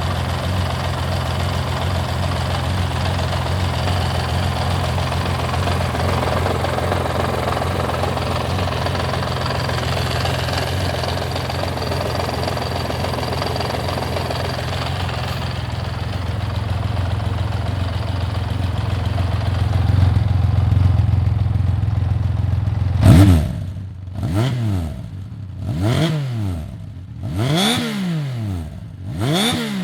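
Honda CBX motorcycle's inline-six engine idling steadily, its carburettors just repaired for a fuel leak. About 23 seconds in, the throttle is blipped five times, each rev rising and falling quickly.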